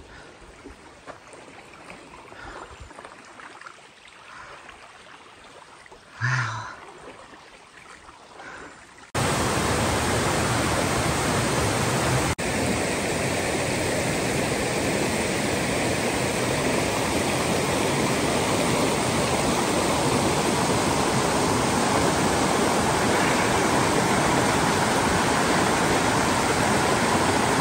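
Quiet woodland with a few faint sounds, then a sudden cut about nine seconds in to a shallow rocky stream rushing steadily over stones, loud and even.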